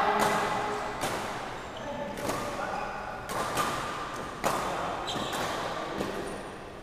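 Badminton rally: rackets striking the shuttlecock in a string of sharp smacks, roughly once a second, echoing in a large hall.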